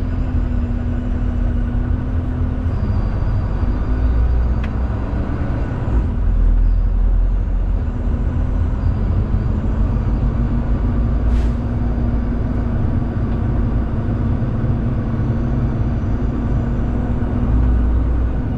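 Inside a semi truck's cab on the move: the diesel engine running steadily under a heavy, constant road rumble, with a short hiss about eleven seconds in.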